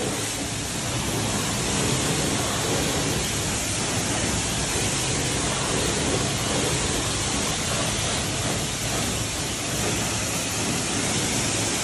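Jet of water spraying steadily onto a dirt bike as it is washed, a dense even hiss.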